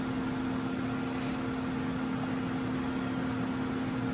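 A steady mechanical hum with a constant low tone under an even rush of air noise, unchanging throughout.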